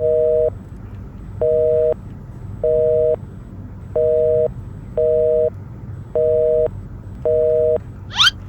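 Seven electronic two-tone beeps, each about half a second long, at uneven intervals. The two tones sound together like a telephone busy signal.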